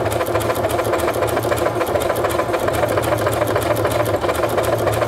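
Brother NQ1300 computerised sewing machine running steadily, its needle striking in a rapid, even rhythm as it stitches a large decorative floral stitch through the fabric.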